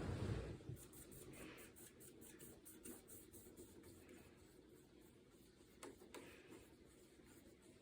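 Near silence with the faint, steady hum of a rattan ceiling fan running, and a light, rapid, regular ticking for a couple of seconds about a second in.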